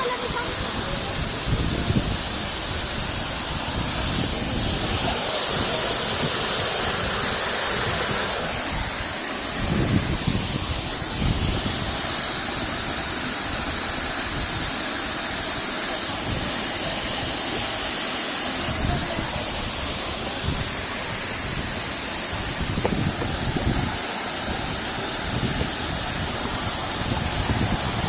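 Waterfall rushing into a rock pool, a steady noise with no pauses, with a few low thumps now and then.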